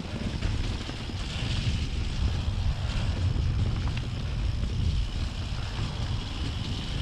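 Mountain bike rolling fast down a leaf-covered dirt trail: steady wind rumble on the microphone over tyre noise, with an occasional light knock or rattle from the bike over bumps.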